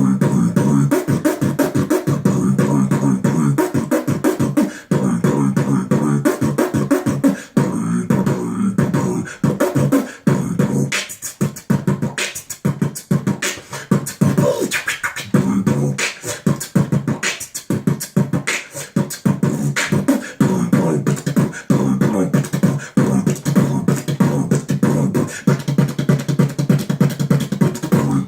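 Beatboxing: a fast, unbroken run of mouth-made clicks and snare-like hits over a steady hummed low tone.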